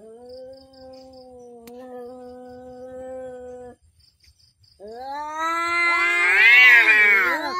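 Two cats in a standoff, yowling threats. First a long, steady low yowl lasts about three and a half seconds. After a short pause comes a louder yowl that rises and wavers in pitch, with a second cat's voice overlapping it near the end.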